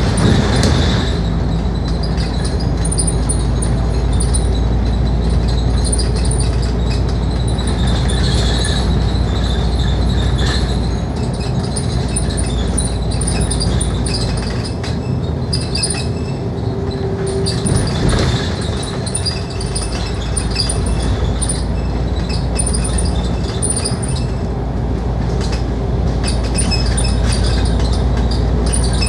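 Scania K310UD double-decker bus heard from inside while driving along, with a steady engine and road rumble and light clinking rattles from the bus's fittings throughout.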